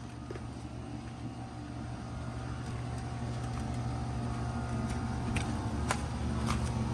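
Nordyne central air conditioner condenser running: a steady hum from the compressor and fan that grows slowly louder, with a few faint ticks near the end.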